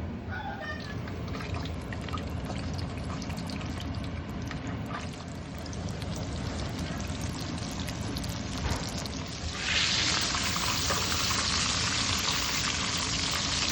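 Scattered small clicks, then near the end a loud sizzle starts suddenly as scaled, scored, skin-on trout fillets go into hot oil and fry.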